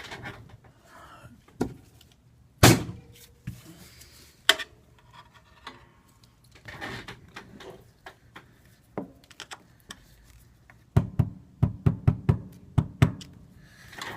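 Sharp knocks and taps on the iPad 2's aluminium housing as a bent lip of the frame is worked back so the screen can sit down flat. One loud knock comes about three seconds in, and a quick run of about six taps comes near the end.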